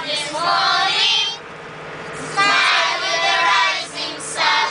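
Children singing together in short phrases with brief pauses, over a steady low hum from the bus.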